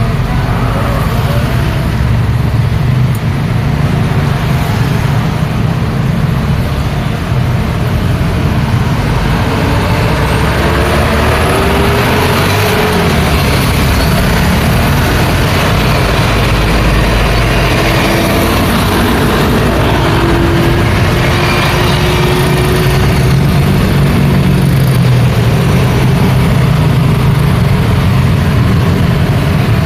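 Busy roadside traffic: cars, trucks and buses running past in a steady engine rumble. Engine notes rise and fall through the middle as heavier vehicles pass.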